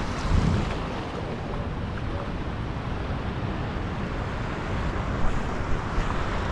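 Steady rushing noise of wind on the microphone and ocean wash, with a low thump about half a second in.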